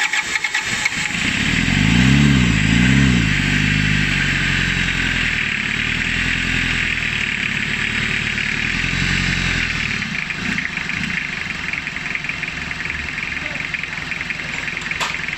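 Toyota 2C four-cylinder diesel engine running just after catching, its fuel lines freshly bled of air. It is revved twice by hand at the injection pump lever about two seconds in, then given a few smaller revs, and it settles to a steady idle about ten seconds in.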